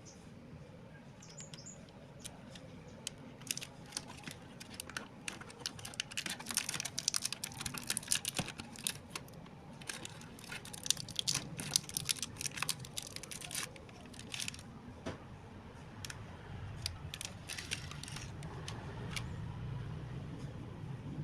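Plastic snack packaging crinkling and crackling as it is handled and opened. The crackles come in dense clusters through the middle and grow sparser toward the end.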